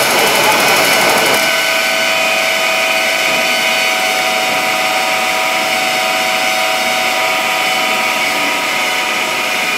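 East Rail Line electric multiple-unit train standing at a platform, giving a steady electrical whine of several held tones over a hiss. The pitch neither rises nor falls.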